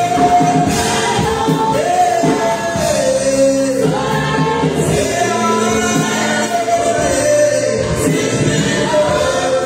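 Church worship music: a choir and singers holding long sung notes, gliding between pitches, over band accompaniment.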